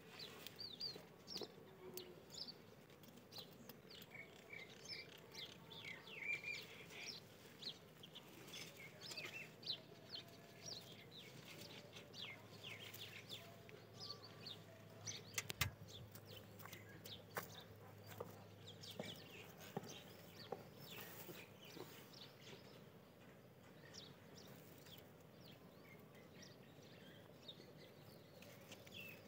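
Faint bird chirping, many short calls through most of the stretch, over soft rustling as rabbits feed on fresh greens. A single sharp click comes about fifteen seconds in.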